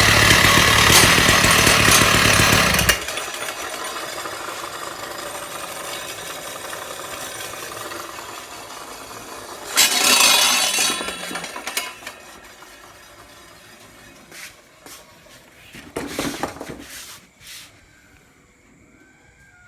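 Husqvarna two-stroke petrol concrete saw running loud at high speed, then cutting off abruptly about three seconds in. After that a fading hiss remains, broken by a couple of brief louder clatters and a few clicks.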